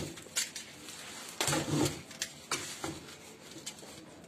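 Clear plastic wrapping crinkling and tearing in a series of short crackles as it is pulled off a sheathed sword.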